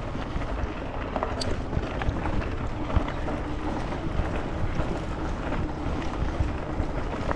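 An e-bike's tyres rolling over a gravel trail while it climbs a steep hill: a steady rumble with many small gravel ticks, and wind on the microphone. A faint steady hum runs underneath for the first few seconds.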